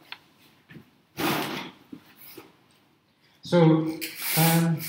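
Speech: a man's voice talking briefly near the end, after a short burst of noise about a second in.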